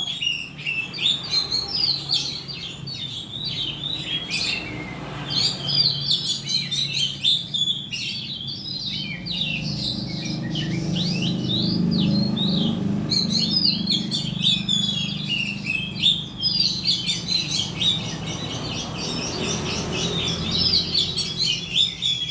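Oriental magpie-robin (kacer) singing continuously: a rapid, varied run of chirps and whistles with barely a pause, played as a lure song to set other kacer singing. A steady low hum runs underneath.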